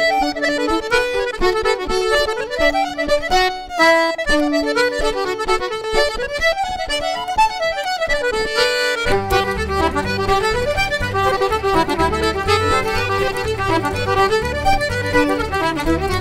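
Traditional Irish dance tune played live on two fiddles and accordion, a fast-running melody. About nine seconds in, a low rhythmic backing joins underneath.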